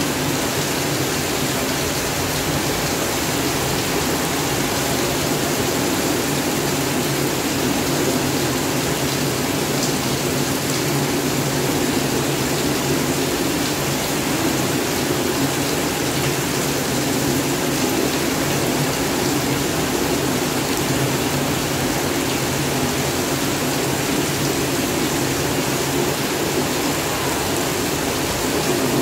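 Heavy rain pouring down steadily, an unbroken hiss of downpour.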